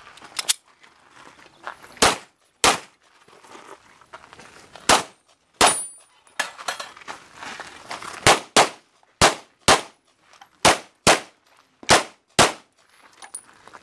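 Glock 34 9 mm pistol fired repeatedly on a practical-shooting stage: about a dozen sharp shots, mostly in quick pairs about half a second apart.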